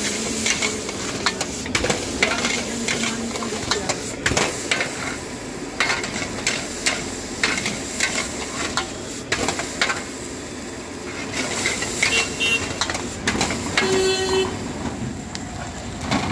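Metal spatula scraping and clanking against a wok in quick, irregular strokes while food sizzles steadily in hot oil: stir-frying noodles over a gas burner.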